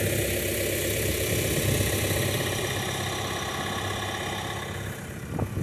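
Vehicle engine idling steadily, growing somewhat quieter toward the end.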